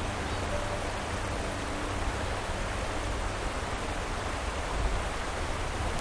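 Rushing white water of a mountain stream tumbling over rocks down a gorge: a steady, even rush.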